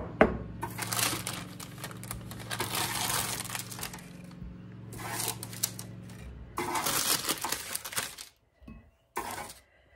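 Metal spatula scraping and tapping on a parchment-lined sheet pan, with the parchment crinkling, as roasted sweet potato chunks are scooped up in stretches of a second or two. A sharp knock at the very start is the loudest moment.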